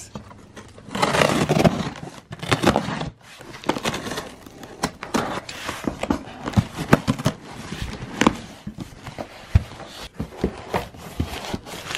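A cardboard shipping box being opened by hand: packing tape peeled off the seam, then the cardboard flaps and plastic wrapping inside rustling, with scattered scrapes and knocks.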